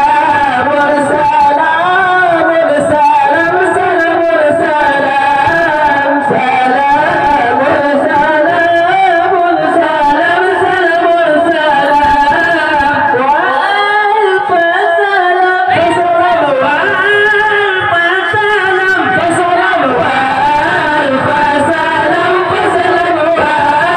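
Acehnese zikir: male voices chanting dhikr in melodic, continuous singing, a lead singer on a microphone with the seated group of young men singing with him.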